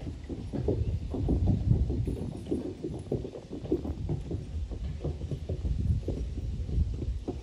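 Horse hooves clopping on a wooden bridge deck as a horse-drawn carriage crosses: a quick, uneven run of hollow knocks, several a second, over a low rumble.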